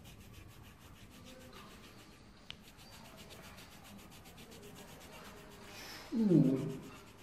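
Colored pencil shading on paper: faint, quick back-and-forth scratching strokes. About six seconds in, a short voice with a falling pitch breaks in, louder than the scratching.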